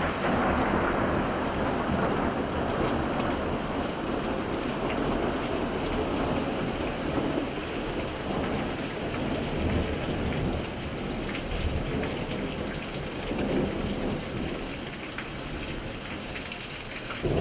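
Steady heavy rain falling in a thunderstorm, with low rumbles of thunder underneath.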